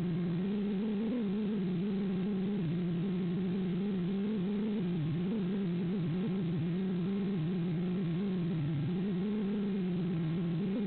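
Eachine Lizard95 racing quadcopter's brushless motors and propellers whining steadily in flight, the pitch wavering up and down as the throttle changes.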